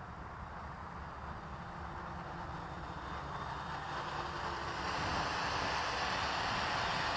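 Small quadcopter's electric motors and propellers whirring, growing steadily louder as it comes in close overhead, with a low wind rumble on the microphone beneath.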